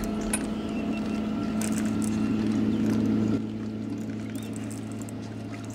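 Boat motor humming steadily. The hum swells, then drops back suddenly a little past halfway.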